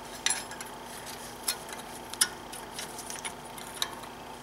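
Scattered light metallic clicks and clinks, about half a dozen spread unevenly over a few seconds, as the front brake caliper's metal spring clip is pushed and worked against the caliper under tension.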